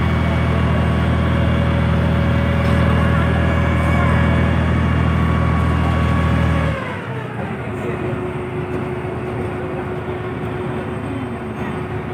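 A heavy engine running with a deep, steady hum. About seven seconds in, its pitch glides down and it settles to a lower, slightly quieter running note.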